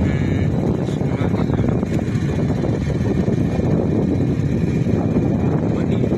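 Steady low rumble of a vehicle running along a road, mixed with wind buffeting the microphone while riding.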